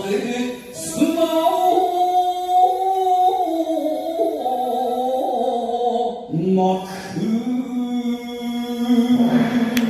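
Solo voice singing in shigin style, drawing out long held notes that step in pitch and waver, over a steady sustained backing tone. Near the end a regular ticking percussion beat comes in.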